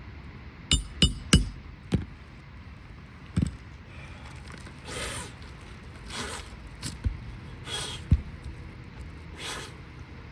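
Hand work on an asphalt shingle roof: three quick sharp knocks about a second in, typical of nails being driven into the shingles, then a few single knocks and several short scraping swishes of shingle material being worked.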